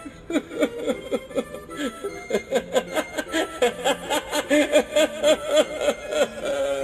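Heckles the Clown animatronic from Spirit Halloween playing a long recorded laugh through its speaker. The laugh is a run of rhythmic ha-ha syllables, about four a second, that grows louder toward the end, over its background music.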